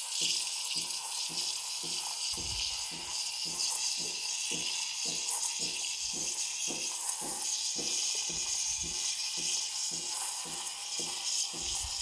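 Espresso machine steam wand hissing steadily while steaming milk, under a regular low pulse about three times a second.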